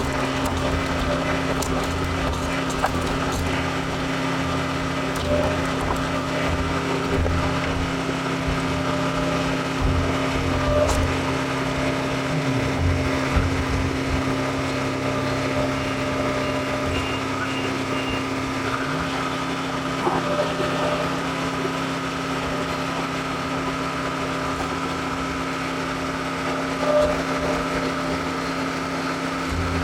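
John Deere 410 backhoe loader's diesel engine running steadily under work. Part of its low tone sags in pitch about twelve seconds in and climbs back a few seconds later. A few light knocks sound over it.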